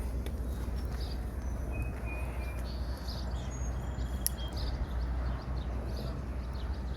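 Outdoor ambience: scattered faint bird chirps and short high calls over a steady low rumble of background noise.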